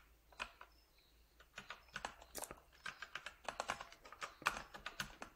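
Typing on a computer keyboard: irregular key clicks, only a few at first, then coming quickly from about a second and a half in.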